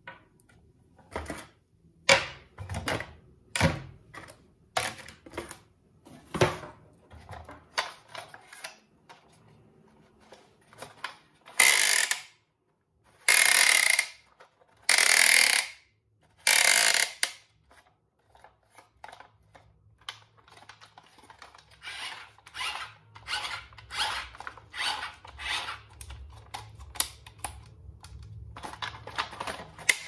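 Hands handling a plastic toy remote-control tank and its cardboard box: scattered clicks, knocks and rattles of hard plastic, with four louder noisy sounds, each under a second, about halfway through.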